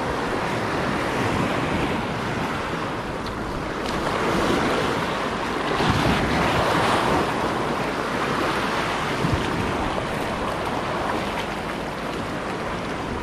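Sea surf washing over a rocky shore: waves surging in and draining back off the rocks, with louder surges about four seconds in and again around six to seven seconds in.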